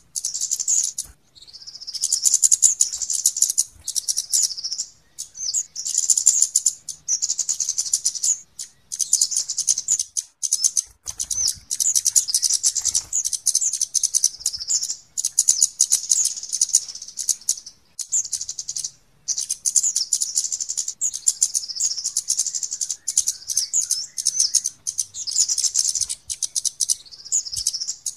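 Flowerpecker (kemade) calls: a fast, high-pitched stream of chirps and chattering ticks that runs almost without pause, with a few brief breaks. It is a lure call (pikat), played to draw wild birds in.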